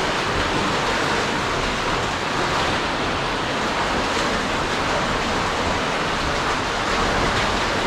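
Underground cave river flowing: a steady, unbroken rush of water.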